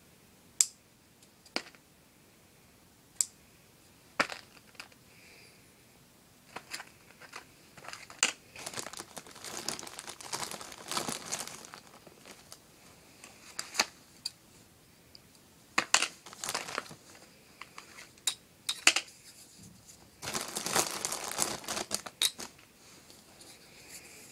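A few sharp snips of scissors, then longer spells of crinkling and rustling as material is handled and crumpled.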